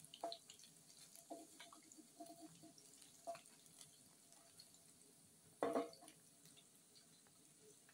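Faint, scattered pops and scrapes of beef strips frying in oil in an aluminium pan as a wooden spatula turns them, with one louder scrape about two-thirds of the way through.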